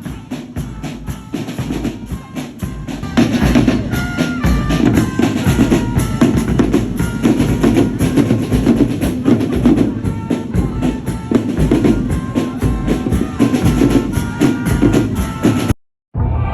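Drum-heavy music: fast, dense drumming with short melodic notes above it. It cuts out suddenly near the end and different music starts.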